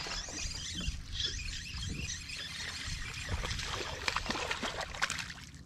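Water splashing and trickling as a hooked bass is reeled in to the boat, with scattered short ticks and taps.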